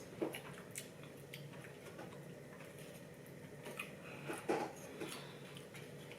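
Quiet eating sounds: chewing, with scattered small clicks and soft knocks from handling sushi and its containers, a few louder ones a little past the middle.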